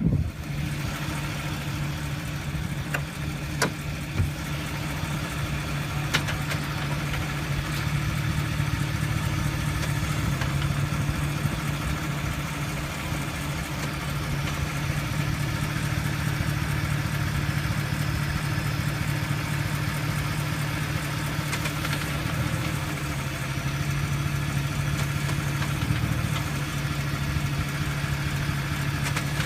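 A 2015 Sierra/Silverado pickup's 6.2-litre V8 idling, with a steady high-pitched whine from its eight-speed automatic transmission as the lever is moved between drive, neutral and reverse. The idle note shifts slightly a few times, and there are a few sharp clicks near the start.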